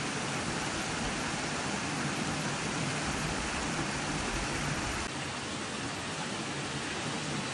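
Steady rush of a flowing river, an even noise without distinct splashes; its low rumble drops away suddenly about five seconds in.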